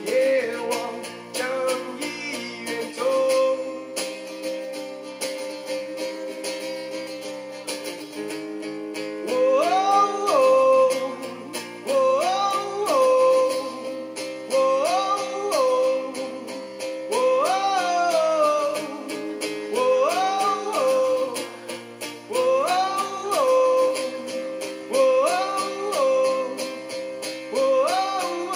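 A man singing into a microphone while playing an acoustic guitar, in a slow solo song. About nine seconds in, he starts repeating a sung phrase that swoops up in pitch and falls back every two to three seconds.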